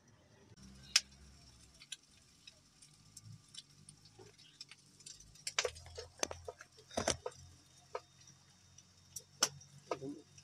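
A kitchen knife chopping spring onions on a wooden cutting board: irregular sharp taps, a few at first, then coming in quick clusters from about halfway through.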